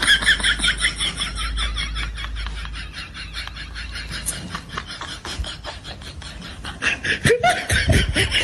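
Rapid, high-pitched laughing in quick even pulses, about five a second, with a lower voice breaking in near the end.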